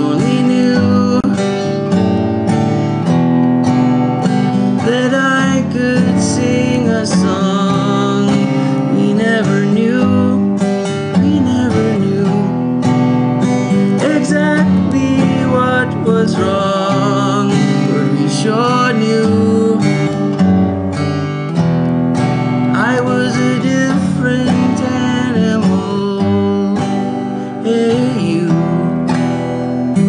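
Acoustic guitar played live, with a man singing over it.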